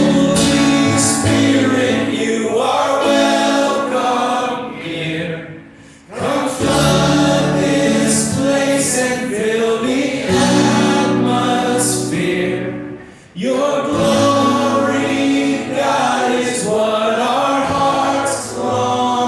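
Worship music: voices singing a slow worship song over instrumental accompaniment, with two short dips between phrases.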